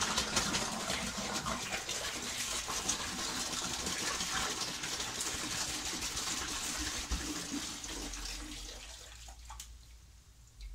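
Washer fluid pouring out of a tipped-up plastic washer fluid tank into a bucket: a steady splashing stream that thins out and fades near the end.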